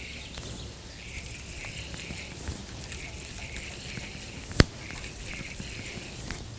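A distant animal chorus calling in a steady pulsing rhythm over a low outdoor hiss, with a single sharp click about four and a half seconds in.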